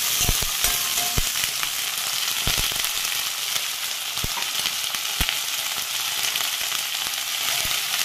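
Fiddlehead fern greens (lingda) and sliced onion sizzling in hot mustard oil in an iron kadhai, a steady hiss. A spatula stirring them knocks against the pan several times.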